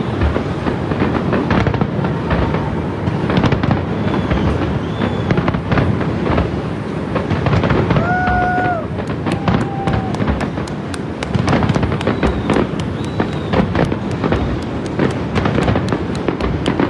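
Aerial fireworks display: a dense, continuous run of shell bursts and bangs, with a fast crackling patter from about nine seconds in. A brief steady tone sounds just past halfway.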